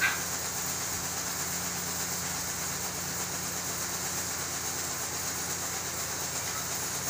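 A steady mechanical hum with a constant hiss, like a motor running, with one brief sharp high-pitched sound right at the start.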